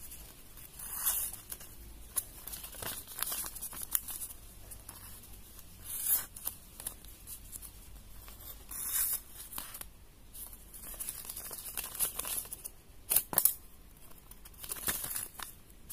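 A freshly sharpened knife blade slicing through paper in short, irregular strokes, each a brief tearing hiss, with the sharpest pair of cuts near the end.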